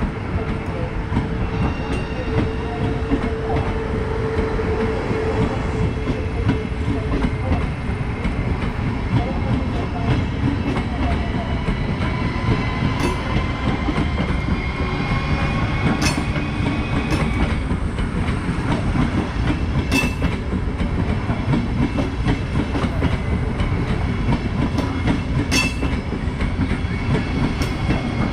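Two coupled ES1 Lastochka (Siemens Desiro RUS) electric multiple units passing close by: a steady, loud rumble of wheels on rails, with a few sharp clicks in the second half.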